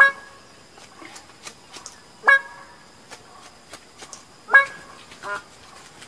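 Bird-of-paradise calling: three loud, short single-note calls about two seconds apart, then a quieter, broken call about five seconds in, over faint background ticking.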